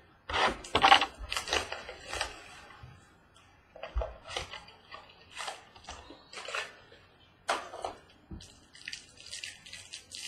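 Trading card pack and cards being handled by hand: plastic wrapper crinkling and cards rustling in irregular bursts, with short pauses between. The loudest rustling is about a second in.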